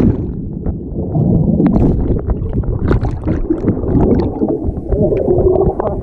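Wave-pool wave breaking over the swimmers: loud, muffled churning and gurgling water with scattered splashes. It turns dull and muffled suddenly as it begins.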